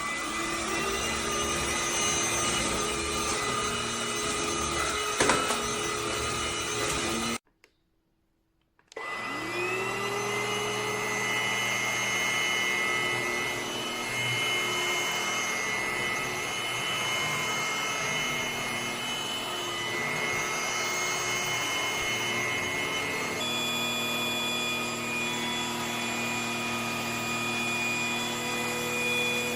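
Cordless stick vacuum cleaner running steadily with a high motor whine. About seven seconds in it cuts out, then starts again a second and a half later, the whine rising as the motor spins up. Near the end the motor's pitch shifts to a new steady note.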